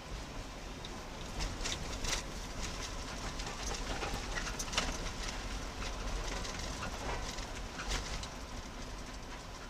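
Rattling ride along a track: irregular sharp clicks and clacks over a steady low rumble.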